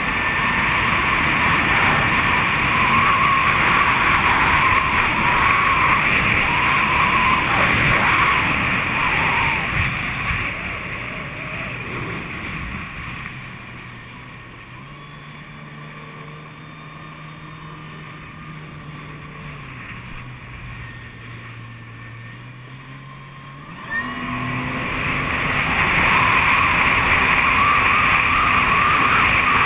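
Kawasaki Ultra 300LX jet ski, its supercharged four-cylinder engine, running at high speed with loud rushing wind and water. About ten seconds in it eases off to a much quieter, steady low engine hum that shifts pitch a couple of times. A brief sharp noise comes just before it speeds up again, loud and steady near the end.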